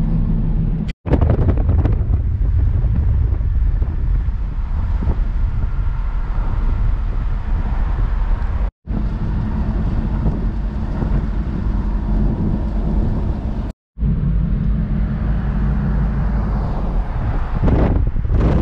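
A car's road and engine rumble with wind buffeting the microphone, steady throughout apart from three brief dropouts to silence.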